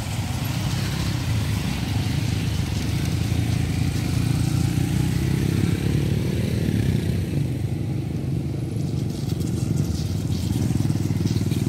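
A 150 cc single-cylinder four-stroke trail motorcycle engine running, with a steady low, pulsing engine note.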